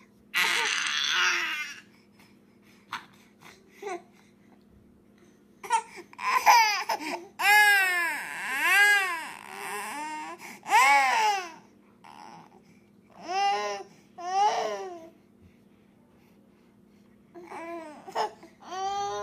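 Infant crying over a pacifier her twin has taken: a short harsh shriek near the start, then from about six seconds in a run of loud wails, each rising and falling in pitch, with two more wails a little later and shorter whimpering cries near the end.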